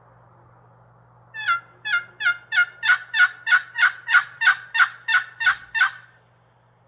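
A turkey call sounding a loud series of about fifteen hen yelps, about three a second, each note breaking down in pitch: calling to draw in a gobbler. A faint low hum runs underneath.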